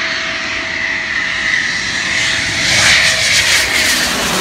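Eurofighter Typhoon's twin Eurojet EJ200 turbofans whining as the jet comes in low on landing approach with its gear down. The sound swells about three seconds in as it passes overhead, and the whine then drops in pitch.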